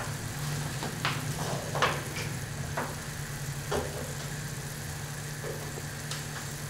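Tamarind gravy bubbling in an open pressure-cooker pan on a gas burner: scattered soft pops at irregular intervals over a steady low hum.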